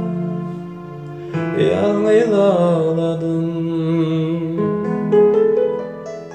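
Closing bars of a song played on an electronic keyboard: held chords, a brief wavering melodic run about a second and a half in, then a final chord that fades out near the end.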